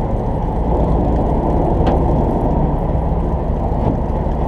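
Party fishing boat's engine running with a steady low drone, and one short sharp click about two seconds in.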